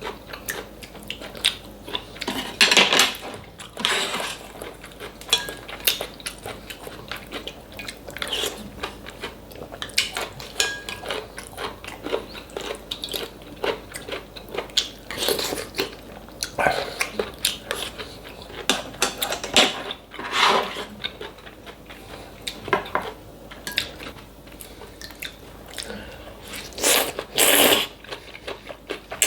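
Close-miked eating: steady chewing and crunching with many small clicks of utensils and dishes, broken by a few louder noisy bursts about a second long.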